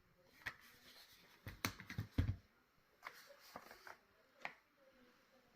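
Handling of a smartphone's retail box and packaging during unboxing: scattered light taps and clicks, with a cluster of louder knocks and dull thumps about two seconds in.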